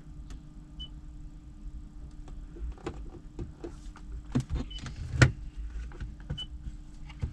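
A 2014 Toyota Camry's touch-screen stereo giving three short high beeps, about a second in, then near five and six and a half seconds, as the repaired screen registers finger presses. Several taps and clicks from the screen and dash, the sharpest about five seconds in, over a steady low hum in the car.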